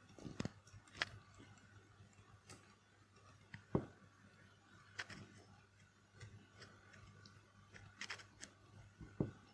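Faint, scattered clicks of a computer mouse and keyboard, about a dozen spread unevenly, over a low steady electrical hum.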